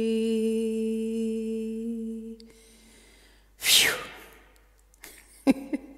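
A woman's unaccompanied singing voice holds the final note of the carol on one steady pitch, ending about two and a half seconds in. About a second later comes a short, loud breath.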